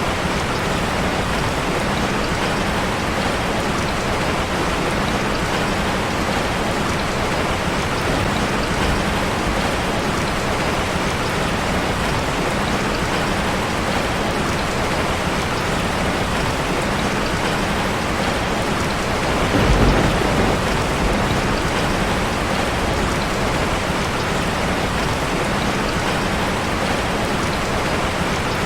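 Steady rain falling on a street as an even, continuous hiss. About twenty seconds in, a brief deeper rumble swells up under it and fades.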